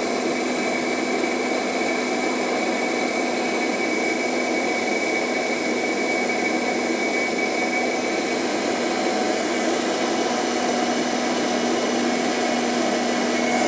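Electric blender running steadily at one constant pitch, mixing a thick shake of powder and water; it gets a little louder near the end.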